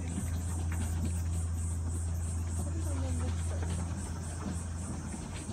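Cicadas chirring in a high, pulsing rhythm, about two to three pulses a second, over a steady low hum.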